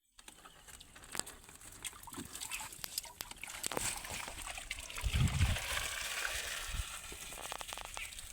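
Water sloshing and trickling with scattered splashes, clicks and knocks. A short low rumble about five seconds in is the loudest moment.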